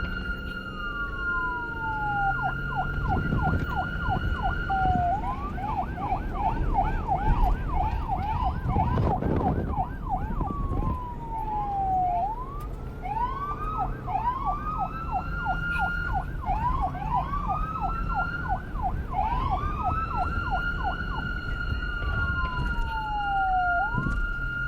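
Police car's electronic siren cycling through its patterns: a held high tone, a fast yelp of about four sweeps a second, slow falling glides and longer rising wails, over a low engine and road rumble.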